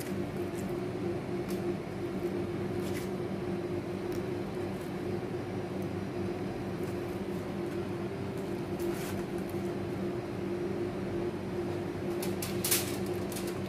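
A steady machine hum at two fixed pitches, like a kitchen appliance or fan running, with a few light clicks near the end.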